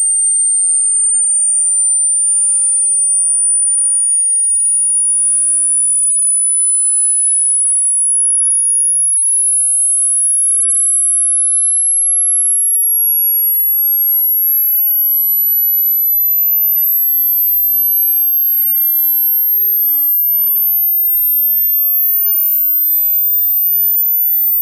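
A single pure sine test tone, very high-pitched and climbing slowly higher in small steps: a hearing-test frequency sweep moving up toward the top of human hearing.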